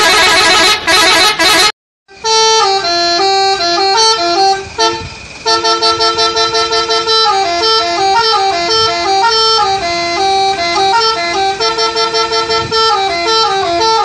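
Multi-tone 'telolet' musical horns on a police truck, loud. A horn blast cuts off suddenly just under two seconds in. After a short gap the horns play a tune, stepping quickly between a few notes, and break into rapid rhythmic toots near the end.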